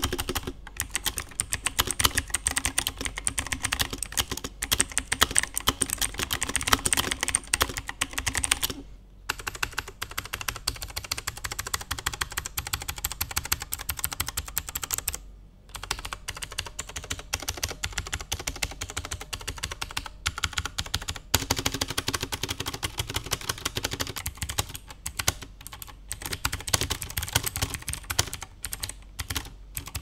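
Typing on mechanical keyboards with clicky blue switches. It starts on an Ant Esports MK1200 Mini with YH blue switches, which has more bass. About halfway through it moves to an Ant Esports MK1000 TKL with Outemu blue switches, which sounds slightly more rattly and noisy, with more treble.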